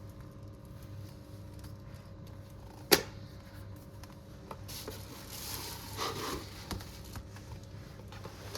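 Handling noise from unboxing a tablet: a sharp click about three seconds in, then soft rustling of packaging and a few light taps, over a steady low hum.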